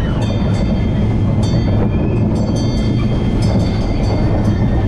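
Vekoma mine train roller coaster running along its steel track, a steady rumble of the wheels with repeated sharp clacks from the track.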